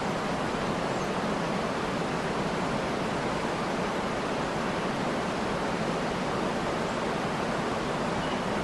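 Waterfall pouring, a steady, even rush of water.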